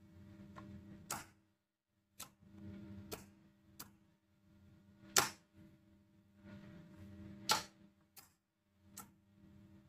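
A two-way wall switch flipped back and forth, switching a motor contactor in and out: several sharp clicks a second or two apart. A faint low hum comes and goes between some of the clicks while the contactor coil is energised.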